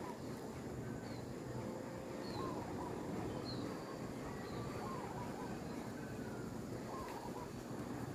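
Faint bird calls, short chirps repeating every second or so, over a steady low outdoor hum.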